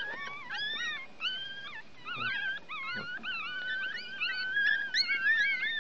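One-week-old Chihuahua puppies squealing and crying: a steady string of high, rising-and-falling squeaks from several pups at once, growing louder in the second half.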